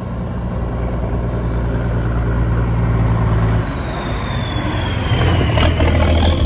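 Ex-military 6x6 cargo truck driving up and passing close by, its engine note growing louder as it approaches and changing about three and a half seconds in. A high whine slides down in pitch as it goes past.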